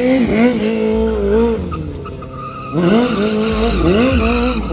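Stunt motorcycle engine revving hard, rising and falling in pitch as the throttle is worked. It holds a rev for about a second, eases off, then blips up and down several times in quick succession from about halfway.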